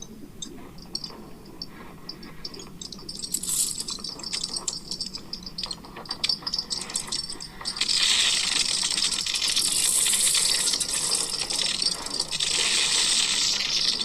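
The European Space Agency's sonification of Earth's magnetic field, made from Swarm satellite data: the field generated by Earth's core interacting with a solar storm, turned into sound. It is a crackling, rattling clatter over a low rumble that swells about eight seconds in into a loud rushing hiss, a sound likened to something moving in chains.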